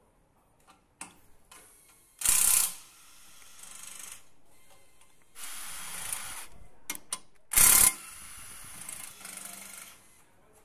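Cordless impact wrench driving bolts down into an aluminium engine block's bearing caps. There are two short, loud bursts, about two seconds in and again near eight seconds, with quieter stretches of tool noise and a few sharp clicks between them.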